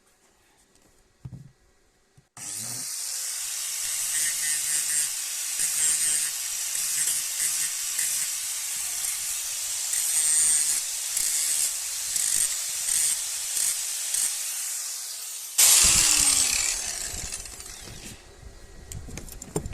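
Electric drill boring out spot welds in a generator's metal frame, running steadily for about thirteen seconds. It ends in a sudden louder burst and a falling whine as the motor winds down.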